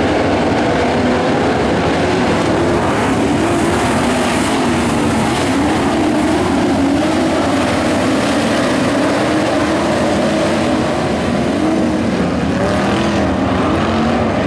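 A field of IMCA modified dirt-track race cars running together, their V8 engines making a loud, dense blend with pitches that waver up and down as the pack goes around the track.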